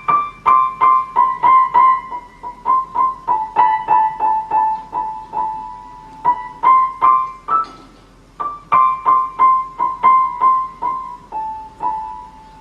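Background music: a solo piano playing a simple high melody one note at a time, about three notes a second, with a short pause near the middle.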